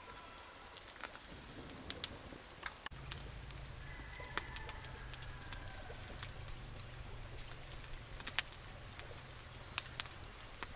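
Small open fire of dry twigs and leaves crackling, with scattered sharp pops. A steady low rumble sits underneath from about three seconds in.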